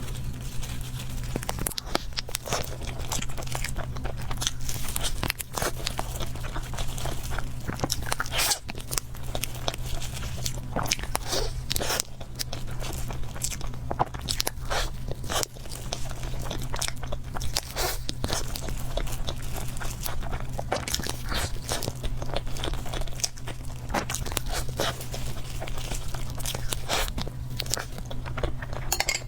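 Close-miked mukbang eating of cake: continuous biting and chewing with many irregular crunchy, crackly mouth sounds over a steady low hum.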